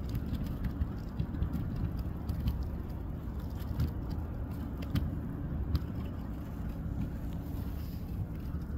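Ice-covered lake freighter working through harbour ice: a steady low rumble with scattered crunching, crackling clicks.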